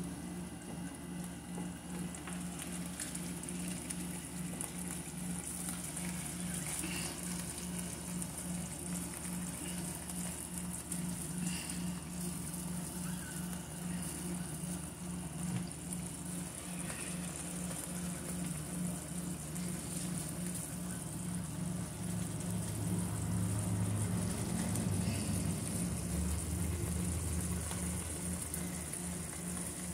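Tomato, onion and garlic sauce simmering in a frying pan on an electric stove, with a steady sizzle, a few soft pops and a steady low hum. A low rumble rises for a few seconds about two-thirds of the way through.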